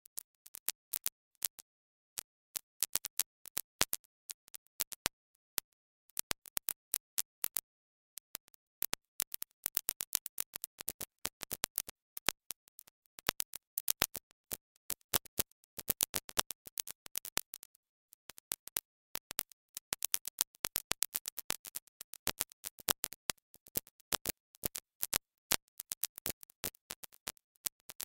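Sharp, irregular clicking and crackling with dead silence between the clicks, sparse in the first few seconds and much denser from about eight seconds in.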